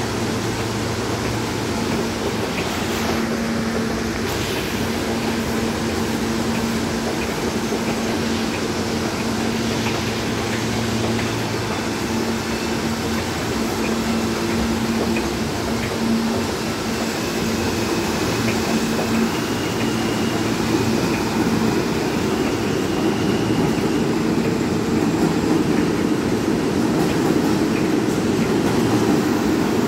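R160 subway train standing in an underground station with a steady hum, then pulling out. A little past halfway a motor whine starts, rising in steps, and the train grows louder as it gathers speed.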